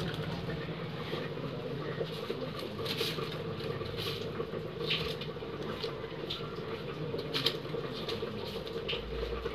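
Dry onion skins rustling and scraping on a bare cement floor as a small child gathers them by hand: scattered light scratches over a steady low hum.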